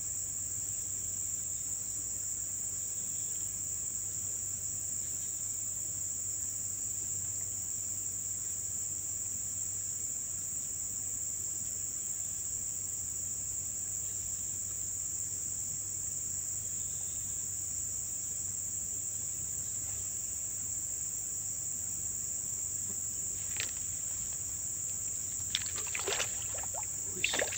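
Steady high-pitched insect chorus droning without a break, with a few short clicks near the end.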